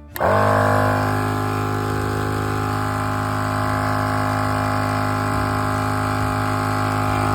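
Tozalazz 12-volt dual-head air compressor kicking on and running steadily under load while inflating a 35-inch truck tire: a loud, even motor-and-piston hum that starts abruptly and settles in pitch within the first half second.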